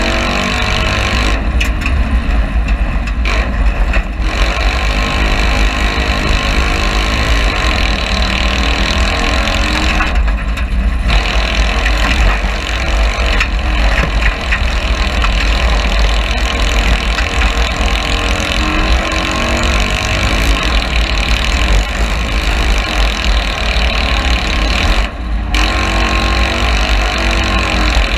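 Citroën 2CV cross car's air-cooled flat-twin engine running hard at racing revs, heard from inside the cabin under a dense noise of the car driving over the dirt track. The noise eases briefly a few times, near the start, about ten seconds in and near the end.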